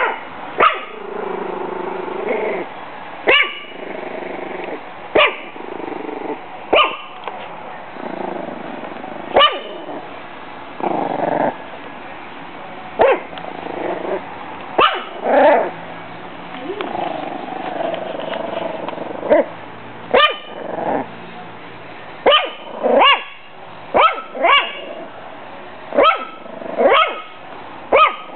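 A six-week-old pug–Jack Russell terrier mix puppy barking over and over, short sharp barks every second or two, with growling between them: she is guarding her food and water against a bag.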